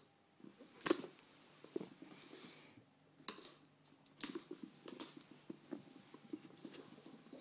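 Cats pouncing after a laser dot: a few sharp knocks and a scatter of soft pattering paw-falls and scrabbles, busiest in the second half.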